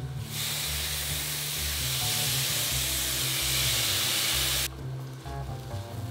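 Lemon juice squeezed into a hot stainless steel pan of roasted spiced chickpeas, sizzling and steaming for about four and a half seconds before cutting off suddenly.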